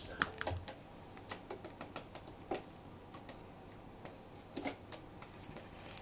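Budgerigar's feet and beak tapping on a clear plastic drink bottle as it moves along inside it: light, irregular clicks, a few close together, with gaps between.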